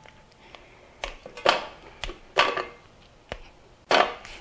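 Vanilla candy coating (almond bark) being snapped apart by hand, the pieces dropping into a stainless steel double-boiler pan: about five sharp snaps and clatters, spaced half a second to a second apart.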